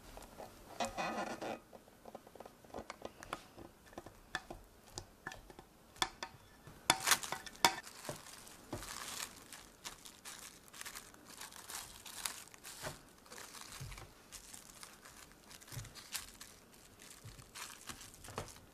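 Plastic cling wrap crinkling and rustling in irregular crackles as it is handled and pressed down onto custard cream in a glass bowl, loudest about seven seconds in.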